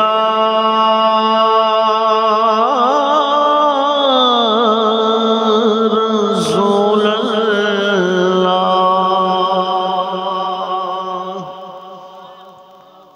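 A man singing a Punjabi naat, a devotional song in praise of the Prophet, into a microphone. He draws out one long held note with wavering ornaments partway through, and the note fades away over the last few seconds.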